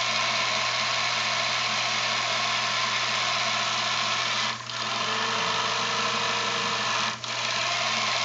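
Miniature two-cylinder slide-valve steam engine, a copy of the Cheddar Models Gemini, running steadily at speed on compressed air at 25 psi, with two brief drops in level about four and a half and seven seconds in.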